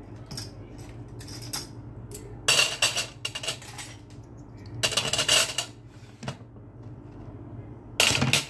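Spatula scraping and knocking against a frying pan of frying potato omelettes, in three short bursts: about two and a half seconds in, about five seconds in, and near the end. A low steady hum runs underneath.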